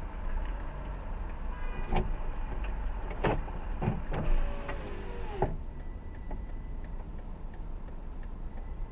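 Steady low rumble of a car, with a handful of sharp knocks and clicks in the middle, one of them followed by a short falling whine.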